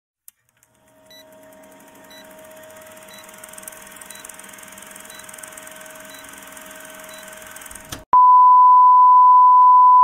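Old-film countdown sound effect: a faint hiss with a steady tone and a short tick about once a second. About eight seconds in, a loud, steady, high test-tone beep cuts in and holds, the bleep that goes with TV colour bars.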